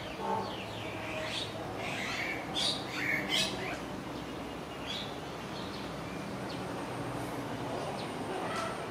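Short, high chirping calls from a small animal: a quick run of them in the first three and a half seconds, then a few more later, over a faint steady low hum.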